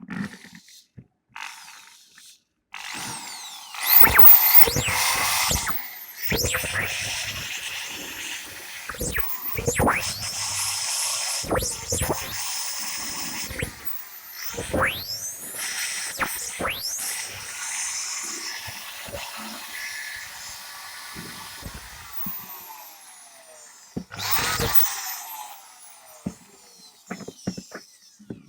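Makita 6412 electric drill test-run with a newly fitted armature: the motor whines up to speed, runs, and winds down, switched on several times. It runs normally again.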